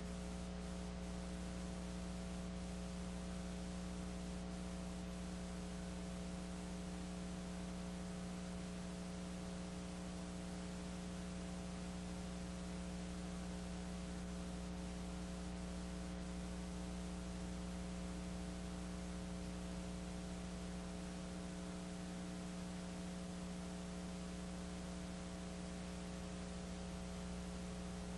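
Steady electrical mains hum with a row of buzzing overtones and constant hiss, unchanging throughout; no sound from the game itself comes through.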